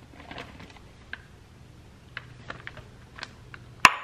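Decorative coloured water beads dropping from a plastic bag into a glass bowl: scattered light clicks and ticks against the glass, with one sharp, louder click near the end.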